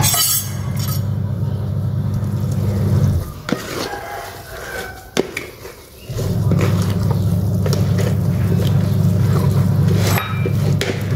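A spoon clinking and scraping in a plastic jar as fermented small fish with roasted rice (pla jom) is stirred, with scattered sharp knocks. A loud low rumble runs through the first three seconds, stops, and comes back from about six seconds until near the end.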